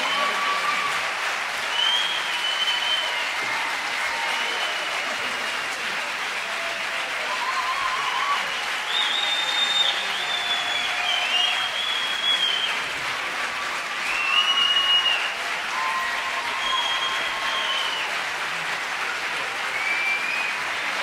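Concert audience applauding steadily, with scattered short, high-pitched whistles over the clapping.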